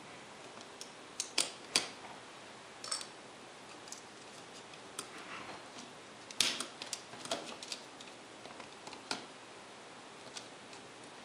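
Light scattered clicks and taps of plastic and small metal parts as a pry tool and fingers work a small circuit board and its connector loose inside an opened netbook's plastic chassis. The sharpest click comes a little past halfway.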